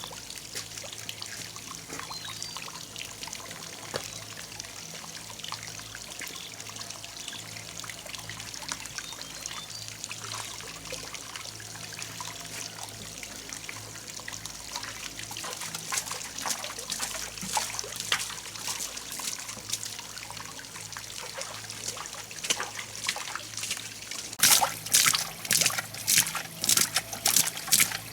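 Water trickling and splashing, with a faint low steady hum underneath; the splashing grows louder and sharper over the last few seconds.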